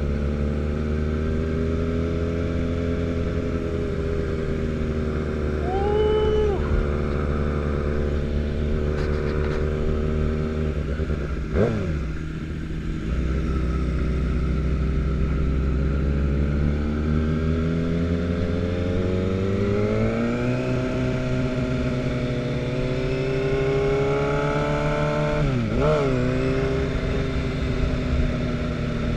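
Sport motorcycle engine running at low revs while the bike rolls along slowly. Its pitch dips and comes back quickly about twelve seconds in, then rises as it speeds up around twenty seconds in, with another brief dip near the end. A short higher-pitched tone sounds about six seconds in.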